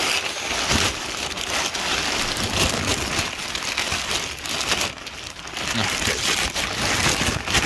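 Kite canopy fabric rustling and crinkling as it is handled and rubbed right against the phone's microphone: a loud, continuous crackling rustle with a short lull about five seconds in.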